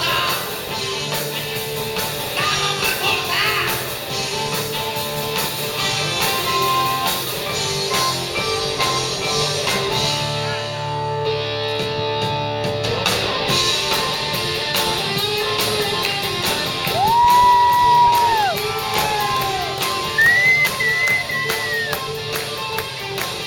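Hard rock band playing live: electric guitar and singing over a full band. Towards the end a few long held notes bend up and down in pitch.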